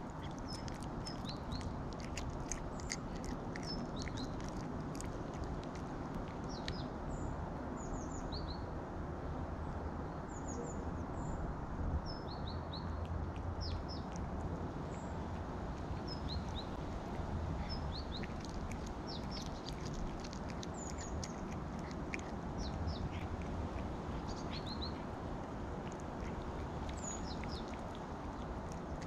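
Small birds chirping in short, scattered calls over a steady low background rumble. In the first few seconds, sharp clicks of a cat chewing raw meat close by.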